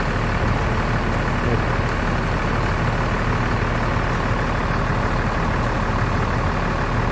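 Diesel engine of a large intercity bus running steadily at low revs, a constant low rumble as the bus pulls slowly away.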